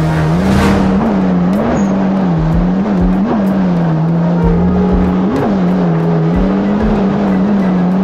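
Yamaha GP1800R SVHO jet ski's supercharged 1.8-litre four-cylinder engine running at speed, its pitch jumping briefly up and settling back again and again. Rushing water and a few low thumps underneath.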